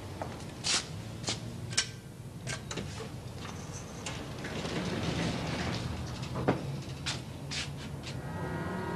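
Footsteps on a hard corridor floor, then the rumble of a lift's sliding doors opening, with a few more clacks. Music comes in near the end.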